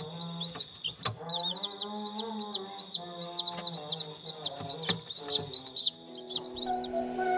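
Newly hatched chicks peeping: a string of short, high cheeps that rise and fall, two or three a second. Background music with long held notes plays underneath.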